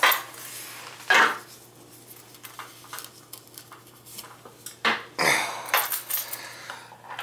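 Scattered metallic clinks and knocks from work on a copper water pipe and fitting in an opened ceiling, with a low steady hum underneath.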